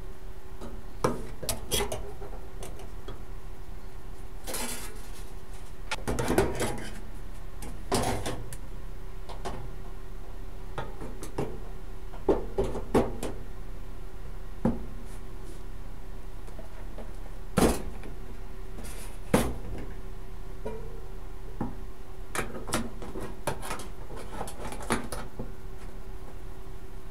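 Scattered light clicks and knocks from sheet-metal and welding work, about a dozen spread irregularly, over a steady hum.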